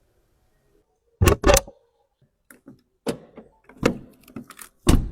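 A series of sharp clicks and knocks: a loud pair about a second in, then several more spaced irregularly, the loudest near the end.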